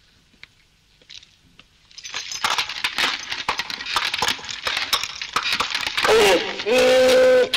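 A donkey braying in loud hee-haw calls that alternate between two pitches, starting about six seconds in. Before the bray there are a few seconds of rapid clattering and clinking.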